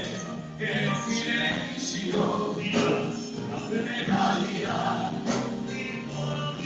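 Music with singing: a song performed with instrumental accompaniment.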